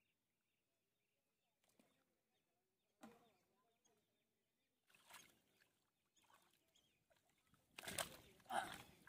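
Faint splashing and squelching of hands scooping and groping through muddy water in a shallow pit: a few short, scattered splashes, the loudest near the end.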